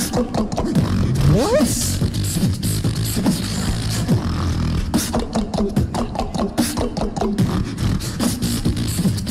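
Two beatboxers performing together as a tag team: fast vocal kicks, snares and clicks over a continuous deep bass line, with a rising vocal glide about a second and a half in.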